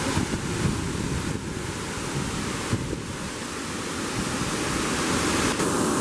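Waterfall plunging into a rocky pool, a steady rushing of falling water.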